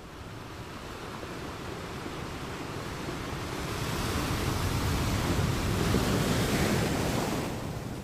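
Ocean surf: one wave's noise builds over the first few seconds, peaks, then falls away near the end as it washes in.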